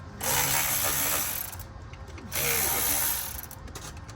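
Power ratchet or driver tool running in two bursts of about a second each, spinning a fastener.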